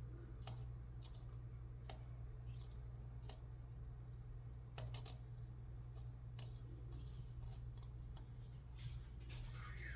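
Light, scattered clicks of small metal lock parts being handled: pins and the disassembled lock cylinder tapping against each other, roughly once a second, over a faint steady low hum.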